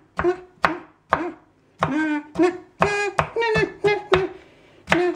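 Kitchen knife chopping tomatoes on a wooden cutting board: about ten uneven strokes, roughly two a second, each followed by a brief pitched tone.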